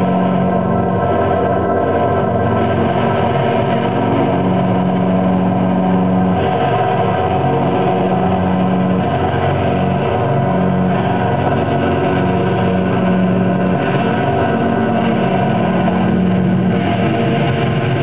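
Improvised experimental music from electric guitar and live electronics: a dense, steady drone of many held tones, with a low tone that cuts in and out every second or two.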